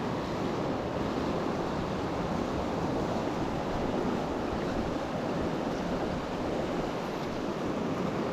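Steady rush of fast, heavy river current, an even roar of water with no breaks.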